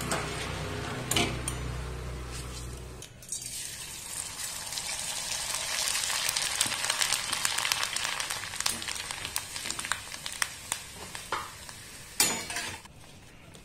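Dried leftover rice grains deep-frying in hot oil in a steel pan: a steady sizzle thick with fine crackles as the grains puff up. Near the end, a brief metallic scrape and clatter as a wire skimmer lifts the fried rice out of the pan.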